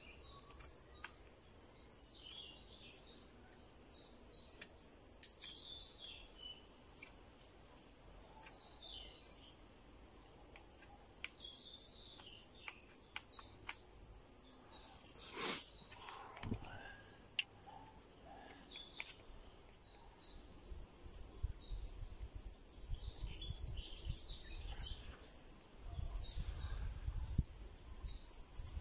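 Woodland birdsong: many birds chirping and trilling all through, with thin scraping clicks of a knife whittling wood and a sharp knock about halfway. Low rumbling comes in near the end.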